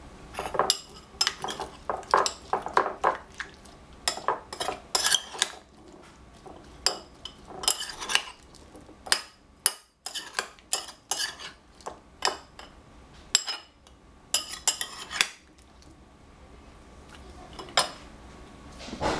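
Two metal spoons clinking and scraping against a bowl as sliced cucumber is tossed, in quick irregular runs of clinks. The clinking stops about fifteen seconds in, and one more clink comes near the end.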